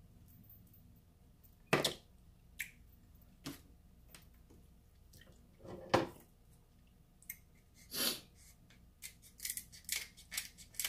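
King crab leg shell cracking and snapping as it is broken apart by hand, in a string of sharp, separate cracks with pauses between them, thickest near the end.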